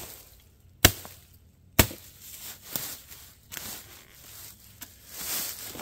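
Forest axe chopping into a dead Virginia pine log: three sharp strikes about a second apart, then a couple of lighter knocks and a brief scrape near the end. The wood being struck is rotten and punky on the outside with a solid centre.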